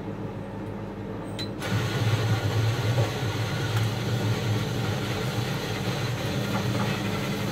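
Bean-to-cup coffee machine starting a drink: a click about a second and a half in, then the machine running with a steady mechanical whir over a low hum.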